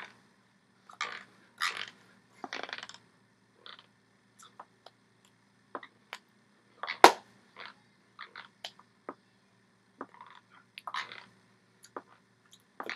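Sounds of a person signing: short rustles as hands brush against a shirt and body, scattered light taps, and one sharp slap about seven seconds in, over a faint steady low hum.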